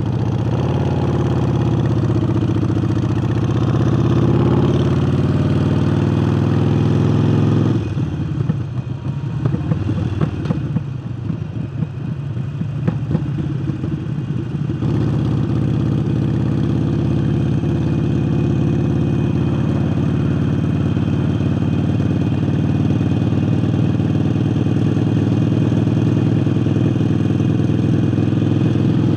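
Harley-Davidson Forty-Eight's air-cooled 1200 cc V-twin running through a new aftermarket air intake, a loud, deep engine note. It eases off about eight seconds in, sounding rougher and quieter for several seconds, then comes back strong and steady for the rest.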